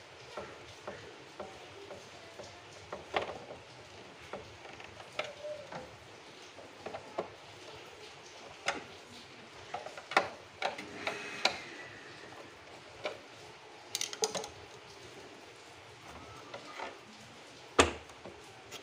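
Irregular light clicks and knocks of hard air-conditioner parts being handled, with a sharper knock near the end.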